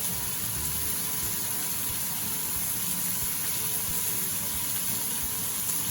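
Pork belly sizzling on a cast iron grill pan: a steady hiss.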